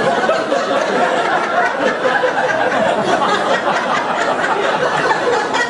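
Many voices talking and laughing at once: an audience chattering with some chuckles and laughter.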